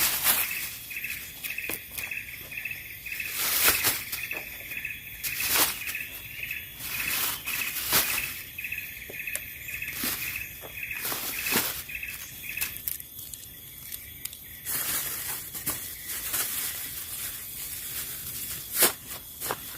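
Outdoor insect chorus: one chirping insect pulses evenly, about two or three chirps a second, and stops about 13 seconds in, over a steady high insect hum. Sharp crackles, like rustling, come every second or two.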